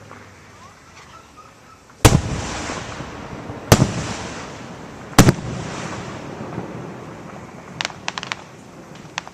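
Aerial fireworks going off: three loud booms about a second and a half apart, each trailing off in a long rumbling echo, then a quick cluster of small crackling pops near the end.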